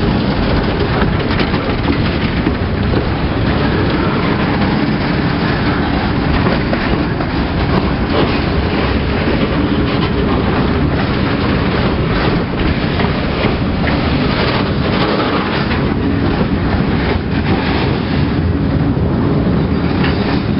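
Freight train's boxcars and loaded flat wagons rolling past at close range: a steady rumble of steel wheels on rail, broken by frequent irregular clicks and knocks.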